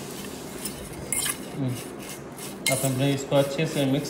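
A steel spoon stirring cut lemon pieces coated in salt and turmeric in a stainless steel bowl. The spoon scrapes and clinks against the metal, with a few sharper clinks.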